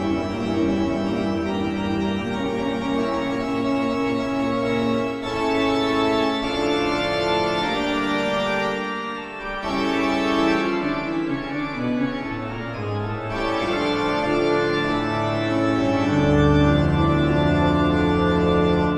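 Eerie organ music playing sustained chords, with a deep bass note swelling in near the end.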